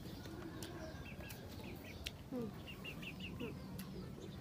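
Faint yard ambience of small birds chirping, with short high notes in quick runs, and a hen clucking twice near the middle. There are a few light clicks.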